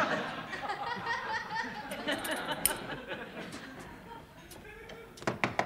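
Studio audience laughing, the laughter dying away over about four seconds; a few sharp knocks near the end.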